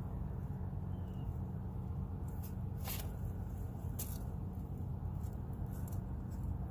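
A thin cord being handled and knotted by hand: soft rustling with a few sharp ticks, the loudest about three and four seconds in, over a steady low rumble.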